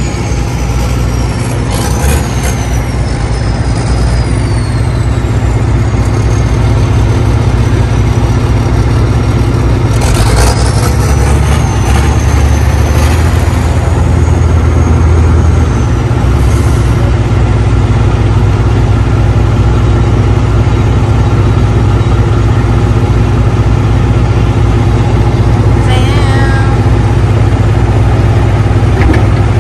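Heavy truck's diesel engine running steadily on the road, with a deep low drone that grows stronger from about ten to sixteen seconds in. A thin high whine slides down over the first few seconds and rises again about ten seconds in.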